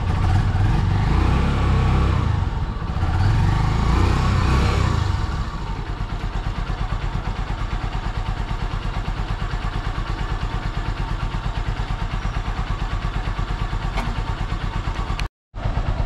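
Honda Supremo 150's single-cylinder engine, left running to warm up after a morning cold start, is revved gently twice in the first five seconds. It then settles to a steady, even idle with no misfiring.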